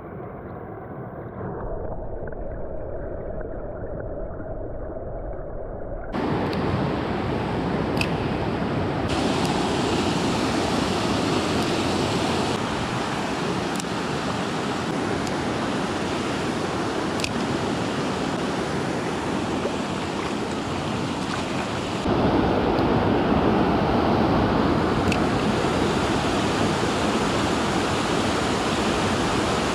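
A fast mountain creek rushing over rocks: for the first six seconds it is heard muffled, as from underwater, then it opens into the full, steady rush of riffles and small cascades, louder again near the end. A few faint clicks sit over the water.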